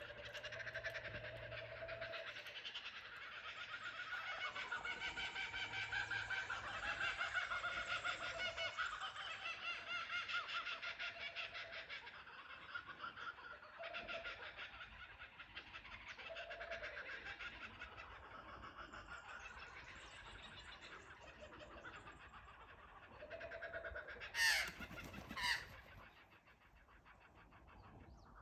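A chorus of laughing kookaburras calling together: rapid, overlapping cackling laughs that swell to a peak and then die away. Near the end come two short, loud, sharp calls.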